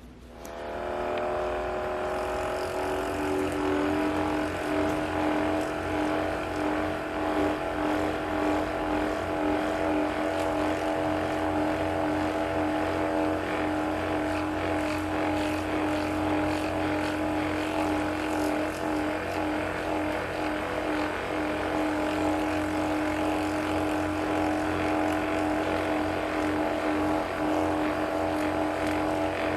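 A small electric motor spinning up, rising briefly in pitch over the first few seconds, then running at a steady speed with a constant hum.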